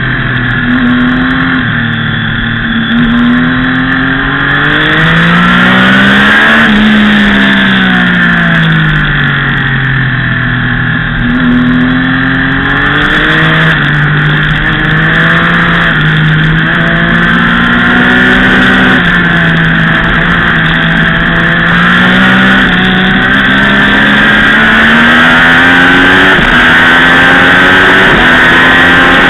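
Sport motorcycle engine at high revs heard from onboard while lapping a track. Its pitch rises and falls through the corners and drops sharply at several upshifts in the second half, with steady wind rush on the microphone.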